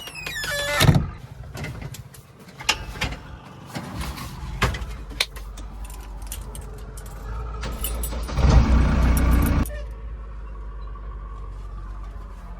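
Heavy vehicle's diesel engine running low and steady, with a run of sharp clicks and knocks in the first few seconds and a louder burst of noise lasting about a second and a half past the middle.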